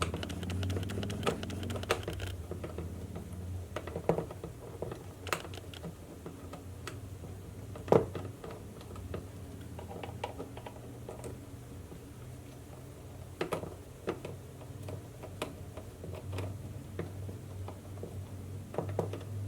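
Small screws being turned into an airsoft rifle's body with a hand screwdriver: irregular light clicks and taps of the tool and the gun's parts, with a sharper knock about eight seconds in.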